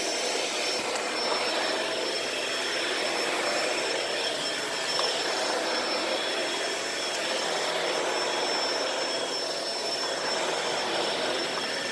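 Shark Rotator Powered Lift-Away upright vacuum running steadily: a constant rush of air with a thin high-pitched whine over it.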